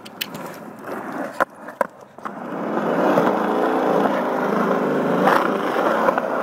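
Small hard wheels rolling over a concrete skatepark, from a kick scooter ridden alongside a follow camera. A few clacks come in the first two seconds, then a steady rolling rumble builds and holds, with a knock now and then as the wheels cross joints.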